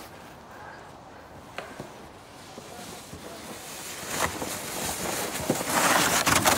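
Plastic sled sliding down icy, packed snow, its scraping hiss growing louder as it comes close, then rough crunching and scraping in the snow near the end as the rider tumbles off.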